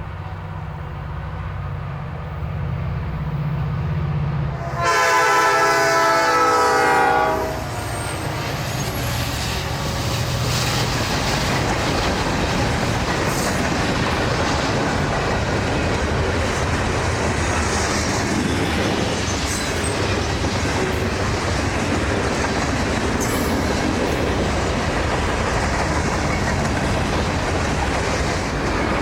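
EMD diesel freight locomotive approaching with its engine running, then one loud horn blast of about two and a half seconds as it passes. After the horn, freight cars roll by with a steady clatter of wheels on rail joints.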